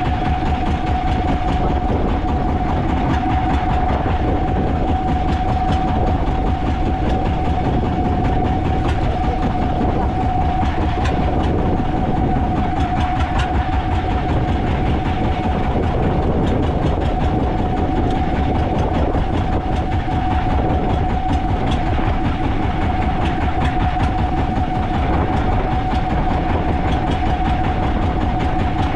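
A fishing boat's engine running steadily under way, a constant loud drone with one steady tone held throughout and no change in speed.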